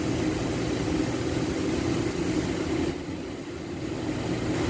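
A steady droning hum that dips briefly about three seconds in.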